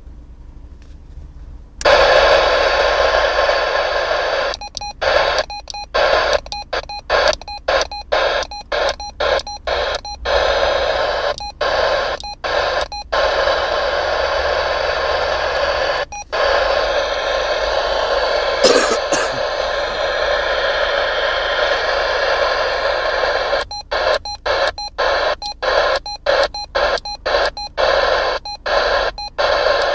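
TTI 881 CB radio hissing static through its speaker, switching on suddenly about two seconds in. The hiss is cut by many short dropouts several times a second, runs unbroken for about ten seconds in the middle, then turns choppy again, with faint beeps.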